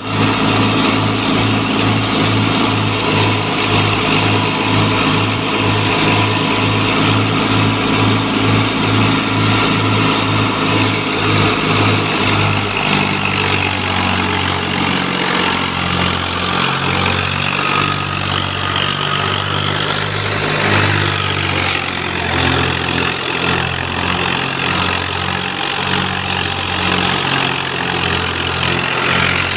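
A New Holland Ghazi tractor's diesel engine running steadily under load, driving a wheat thresher whose drum and fans churn as sheaves are fed in. The engine's low pulsing beat shifts about thirteen seconds in.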